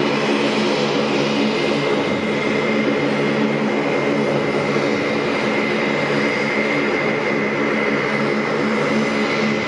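Lockheed CC-130J Hercules running all four Rolls-Royce AE 2100 turboprop engines on the ground, their six-bladed propellers turning. The sound is a steady, loud propeller drone with a high turbine whine over it.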